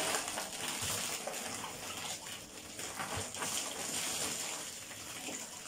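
Shampoo-lathered wet hair being scrubbed with a handheld scalp brush: a steady wet noise with faint repeated strokes.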